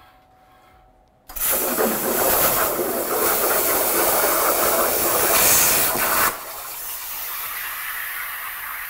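CNC plasma cutter torch firing about a second in with a sudden loud hiss as the arc cuts through metal plate, restarting a failed cut. After about five seconds the arc stops abruptly, leaving a quieter steady hiss.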